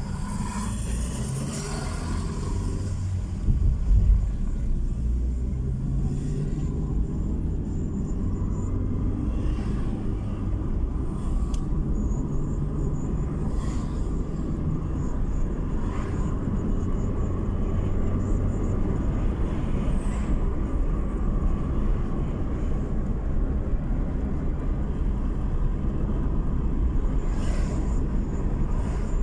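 Steady low rumble of tyres and engine from inside a moving car, with a brief thump about four seconds in.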